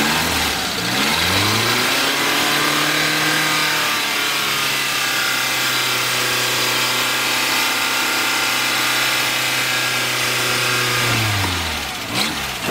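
Off-road vehicle engine revving up, held at high revs for about nine seconds, then dropping back toward idle near the end, followed by a sharp knock.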